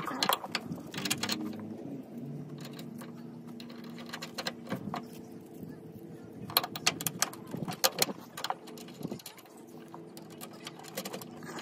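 Metal clinks and rattles of a small bracket and bolt being handled and fitted by hand against a truck's frame rail, in a few clusters, over a steady low hum.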